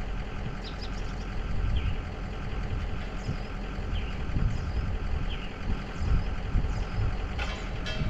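Truck engine running steadily with a low rumble, with a few brief high chirps and two sharp clicks near the end.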